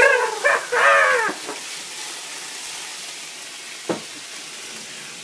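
Bananas sizzling in brandy and butter in a hot cast iron skillet during a flambé, a steady frying hiss. A person's voice sounds briefly at the start, and there is a single sharp knock about four seconds in.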